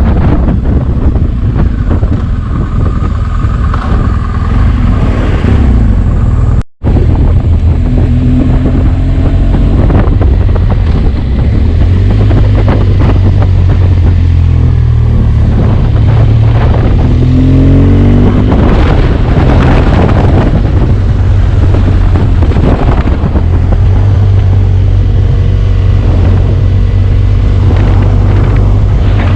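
BMW R1200GS boxer-twin engine running on the road through its stock exhaust. The engine note rises and falls a few times midway through. The sound cuts out for an instant about seven seconds in.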